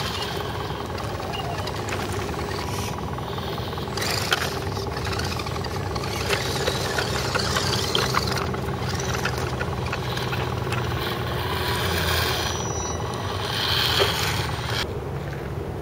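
Radio-controlled scale crawler trucks driving over loose gravel: a steady drone from the electric motors and gearboxes, with scattered sharp clicks and crunches from tyres on the stones.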